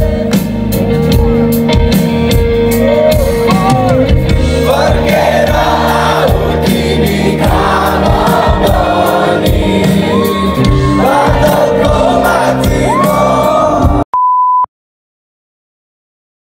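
Live rock band playing through a concert PA: electric guitars, drums with regular cymbal hits, and a singer. The music cuts off about fourteen seconds in, followed by a short steady beep and then silence.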